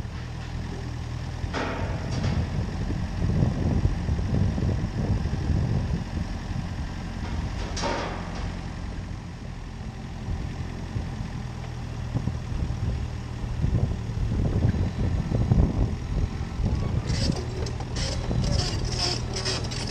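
An engine idling steadily, with a sharp knock about a second and a half in and another about eight seconds in, and a rapid metallic clatter over the last few seconds.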